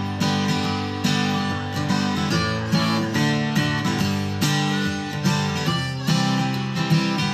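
Acoustic guitar played in a country-bluegrass style, strummed and picked, as an instrumental break.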